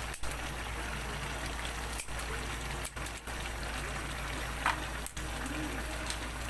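Breadnut and string beans in coconut milk simmering in a pan with a steady bubbling hiss as the sauce is cooked down until its oil separates. A brief click is heard a little over four and a half seconds in.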